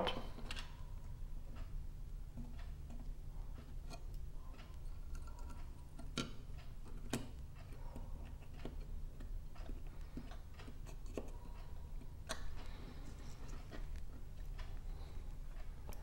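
Faint, scattered small clicks and taps of a precision screwdriver and fingers handling the opened plastic case and circuit board of a Sonoff NSPanel Pro, over a low steady hum.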